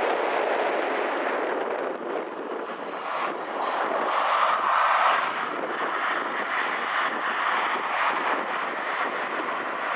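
Boeing 737-700's CFM56 turbofan engines during touchdown and rollout: a loud, steady jet rush that swells to its loudest about four to five seconds in and then eases slightly.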